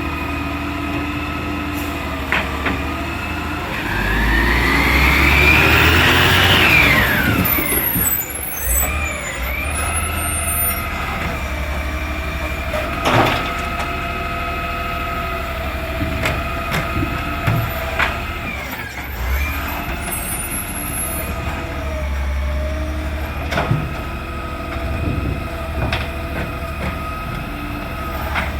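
Garbage truck running with a steady whine, revving up and back down once a few seconds in. A few sharp knocks come through along the way.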